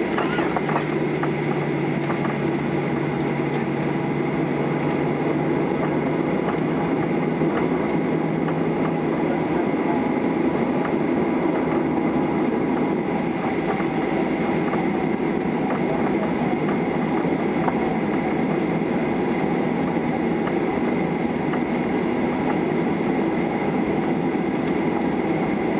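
Steady cabin noise of a Boeing 737-800 taxiing, with its CFM56-7B engines at idle, a steady high whine and the rumble of the wheels on the taxiway with faint scattered knocks. A low hum fades out about six seconds in.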